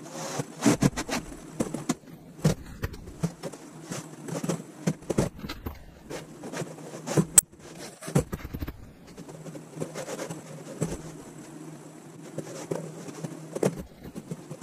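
Wooden boards handled on a workbench: a string of knocks, clatters and scrapes of pine board and strips being moved and set down, over a steady low hum.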